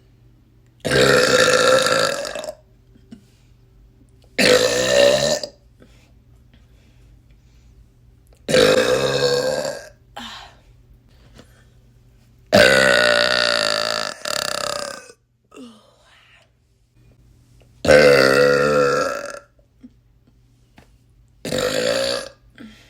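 A woman belching loudly again and again: seven long, pitched burps, spaced a few seconds apart, with two coming back to back midway.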